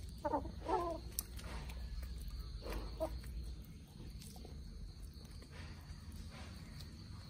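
Chickens clucking softly while they feed: a few short clucks in the first second and again about three seconds in, with light pecking taps on the ground between them.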